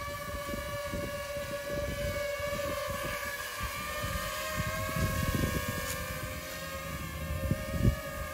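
DJI FPV drone's propellers running with a steady whine whose pitch wavers slightly as it manoeuvres low. Under it is an uneven low rumble, with a short knock near the end.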